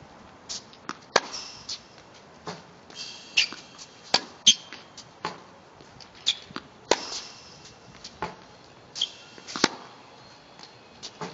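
Tennis balls being hit with a racket and bouncing on a hard court: a string of sharp pops about every second or two, the loudest a few seconds in. A few short, high squeaks come in between, as shoes skid on the court surface.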